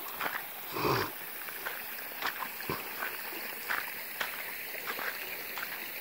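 A single short, low grunt-like monkey call about a second in, over scattered light clicks.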